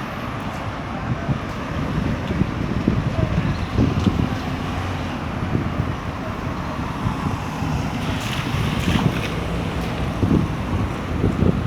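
Wind buffeting the microphone in an uneven low rumble, over steady street and traffic noise.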